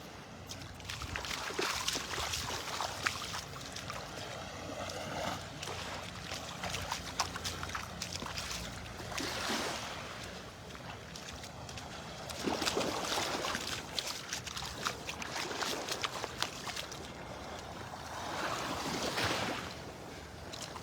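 Small Gulf of Mexico waves washing up on the sand, a hiss that swells and fades every few seconds.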